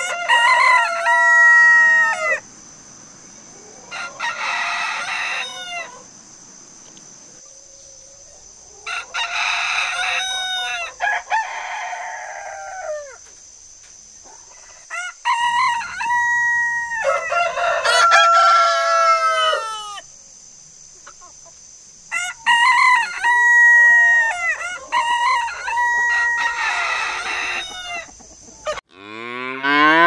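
Roosters crowing over and over, long cock-a-doodle-doos with a held note at the end, some overlapping, over a steady high insect chirring. Just before the end the chirring cuts off and a cow starts to moo.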